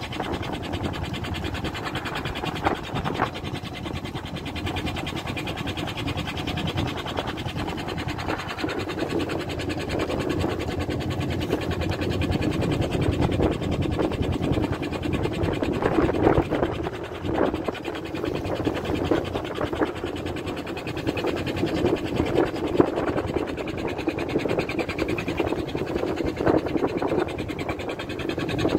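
A fishing boat's motor drones steadily, with irregular knocks and water splashing beside the hull.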